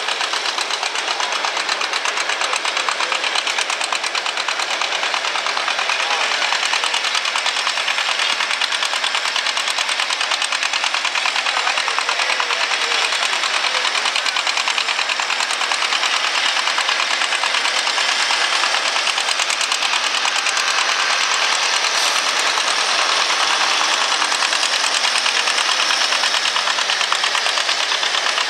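Pulling tractor's engine running hard under load, a fast, even firing that holds steady and grows a little louder in the last third.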